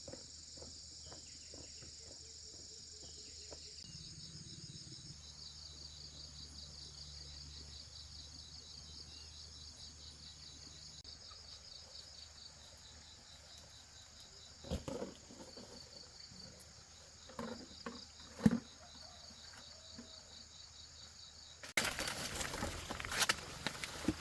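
Insects chirping in a steady, rapidly pulsing high trill, with a few sharp knocks about two thirds of the way through. Near the end a louder rustling noise sets in.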